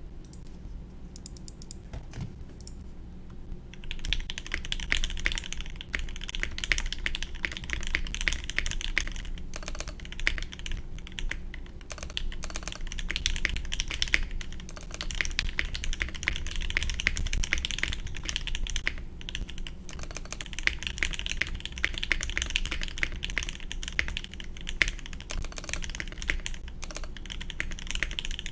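Custom mechanical keyboard with lubed NK Dry linear switches on a stainless steel plate and GMK keycaps, typed on fast. A few scattered keystrokes come first, then continuous rapid typing starts about four seconds in, with a few brief pauses.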